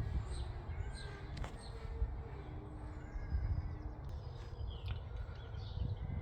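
Birds chirping and calling faintly over a low rumble, with a few light clicks.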